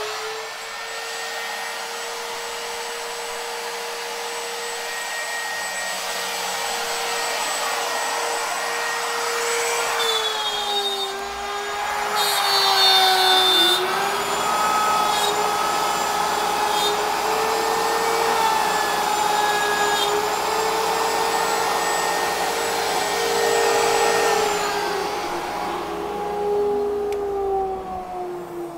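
The router on a CNC router table running at speed with a steady high whine while the bit mills plywood. The pitch sags under load and a rough cutting noise rises as the bit bites into the wood about ten seconds in. Near the end the sound falls away as the cut finishes.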